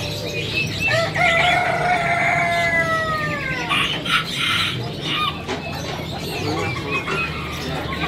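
A rooster crowing once: one long call that holds its pitch, then falls at the end, lasting about three seconds. Small birds chirp faintly in the background.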